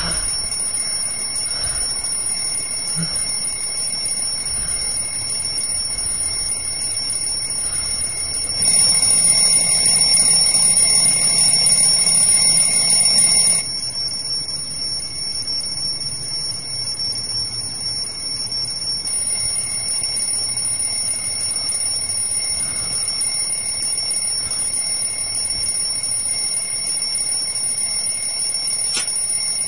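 Alarm clock bell ringing without a break, a steady high-pitched ring. It grows louder for about five seconds, starting about nine seconds in.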